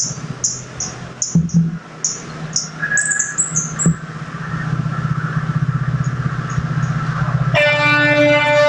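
Short, high bird chirps repeat for the first few seconds while the low rumble of an approaching train builds and grows louder. Near the end a train horn starts, a loud, steady multi-tone note that holds.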